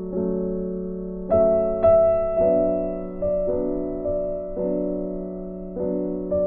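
Background piano music, with notes and chords struck about once a second and left to ring.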